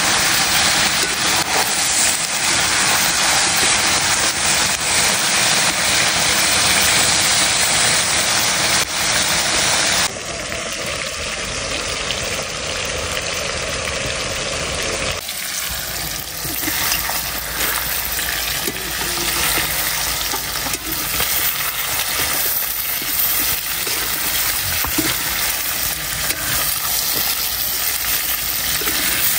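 Local rooster meat frying in a pan, sizzling steadily. The sound drops abruptly about ten seconds in and changes character again a few seconds later.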